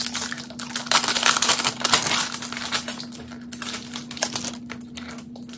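Crackling, crinkling plastic wrap being torn and pulled off a perfume box. The crinkling is densest in the first two seconds, then thins to scattered crackles.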